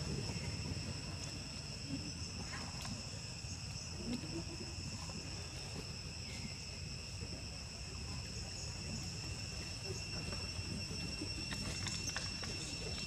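A steady, high-pitched insect chorus, holding two unbroken tones, over a low rumble.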